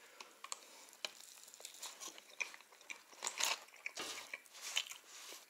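Crusty baked casserole and its paper wrapper crackling and rustling as they are handled by hand: scattered small crackles, with a louder burst about three and a half seconds in and another near the end.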